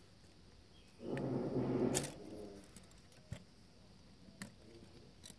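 Light plastic clicks from handling the parts of jeweler's magnifying eye glasses. About a second in comes a louder, low-pitched sound lasting about a second.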